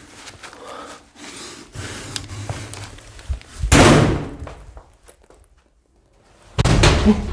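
Footsteps on a carpeted floor, then a sudden loud bang about three and a half seconds in that fades over about a second, followed by a moment of near quiet and another loud sound near the end.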